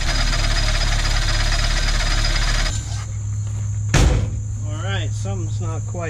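Datsun 1200's A12 four-cylinder engine running with a loose fan belt, then cutting off about two and a half seconds in. About a second later comes a single loud thump, followed by a string of short warbling sounds.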